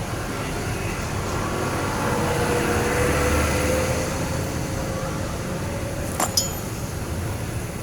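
Steady background engine noise that swells and fades as a vehicle passes, with a faint rising tone. About six seconds in comes a sharp metallic clink with a short ring, like a metal part or tool set down.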